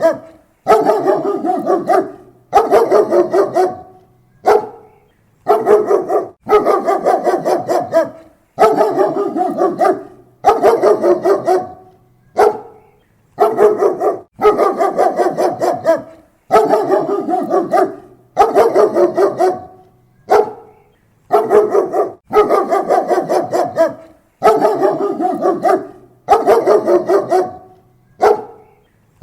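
German Shepherd barking close to the microphone in quick volleys. Each volley lasts about a second of rapid barks, with short pauses between volleys.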